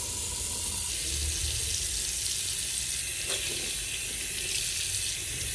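Bathroom sink faucet running steadily, its stream splashing into the basin over a hand rinsing a makeup sponge.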